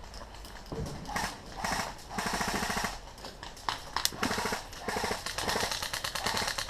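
Airsoft guns firing on full auto in several short rapid-fire bursts, the longest lasting under a second.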